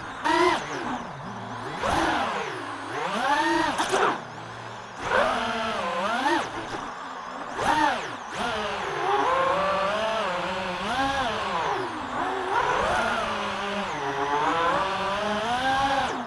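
DJI FPV drone's motors and propellers whining in flight, the pitch swooping up and down again and again as the throttle changes.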